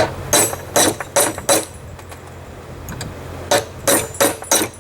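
Hand hammer striking steel tooling on hot metal in two runs of quick blows, four and then five, with a short ringing after each.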